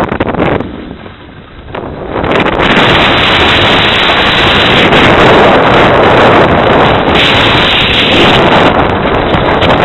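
Wind noise on the microphone of a camera carried by a skier going downhill: a few short gusts at first, then a loud, steady rush from about two seconds in as the skier picks up speed.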